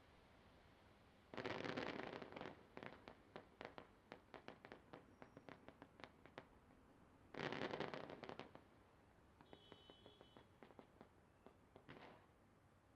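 Fireworks going off: a loud burst, then a run of many sharp crackling pops, a second loud burst about six seconds later, and scattered pops after it.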